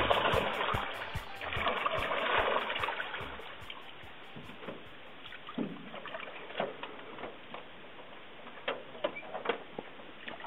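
Water lapping and trickling against the floats of a moored floatplane, louder for the first few seconds, then softer with scattered light knocks. The tail of a music track fades out early on.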